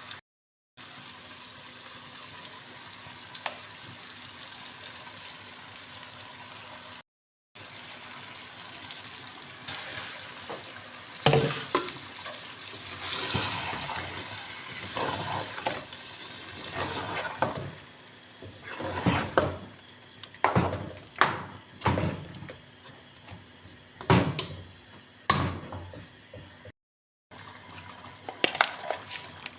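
Cooking in a pan: a steady sizzle, then water sloshing with irregular scrapes and clinks of a spoon against the pot.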